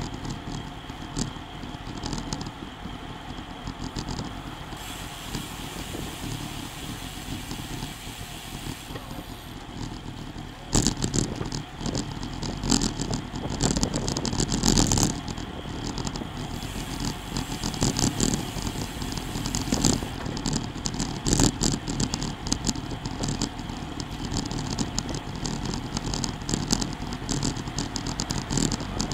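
Road bike riding at about 20 mph: tyre noise on the asphalt and wind on the microphone, with irregular rattling and clicking from the bike over the road surface, busier and louder from about ten seconds in until past twenty.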